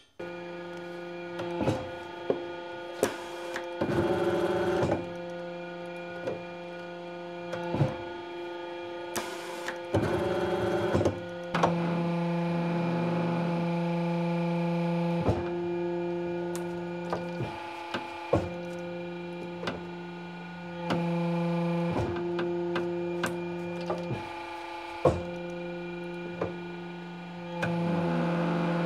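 Repaired paper shredder running, its motor giving a steady hum while cardboard goes through the cutters with scattered cracks and snaps and several louder crunching stretches, about four seconds in, about ten seconds in and near the end.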